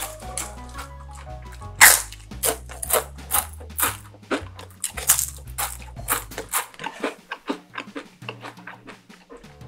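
Loud, crisp crunching as deep-fried rice paper chips are bitten and chewed, about two to three crunches a second, over background music whose bass falls away near the end.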